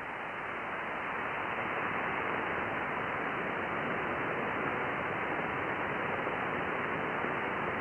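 Steady hiss in an Icom IC-7000 transceiver's sideband audio, cut off sharply above about 3 kHz. It grows louder over the first two seconds as the mic gain is turned up, then holds level.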